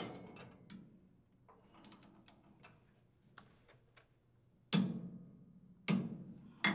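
Socket ratchet and click-type torque wrench on the flywheel nut: a sharp click, light ratchet ticks, then three loud sharp clicks about a second apart near the end as the torque wrench releases at its set torque of 60 foot-pounds.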